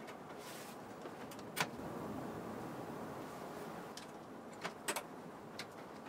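A screw and screwdriver knocking against the metal rack rail and blanking panel while the panel is screwed on: a sharp metallic click about a second and a half in, and a quick cluster of three clicks near the end, over steady background noise.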